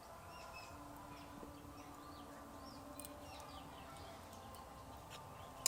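Small birds chirping faintly in the background over a low steady hum, with a couple of soft clicks.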